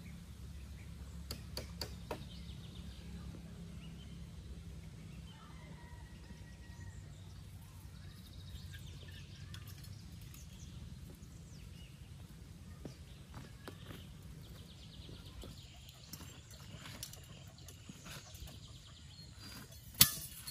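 Rural outdoor ambience with birds chirping now and then and a low rumble that fades after the first few seconds. A few light knocks of bamboo trellis poles being handled come about two seconds in, and a single sharp click near the end is the loudest sound.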